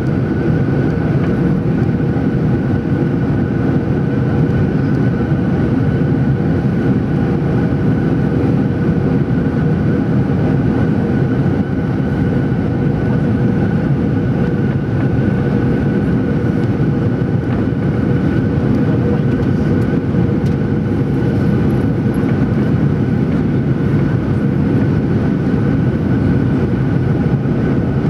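Steady cabin noise inside a Boeing 737-800 on approach: its CFM56 turbofan engines and the airflow make a loud, even rush, with a steady whine on top.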